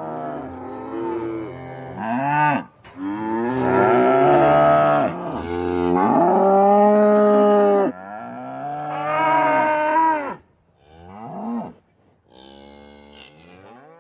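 Cattle mooing: a run of long, overlapping moos from more than one animal, then two shorter moos near the end.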